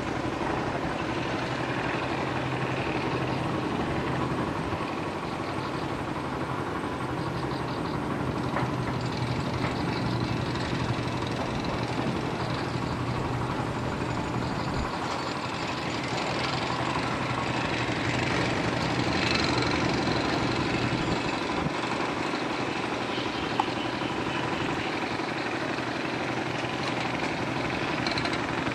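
A heavy engine running steadily, a low constant hum over a noisy mechanical bed, with a few faint clicks.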